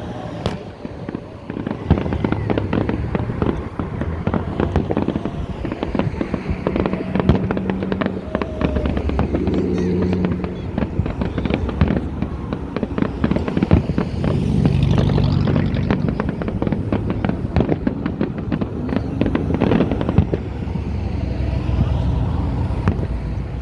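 Fireworks going off without a break: a dense, rapid crackle of many sharp pops and bangs.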